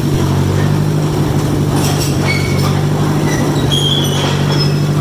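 John Deere 1010 crawler running steadily as it moves off on its steel tracks, with brief metallic squeals and clanks from the track undercarriage about two to four seconds in. The owner says the engine runs rich.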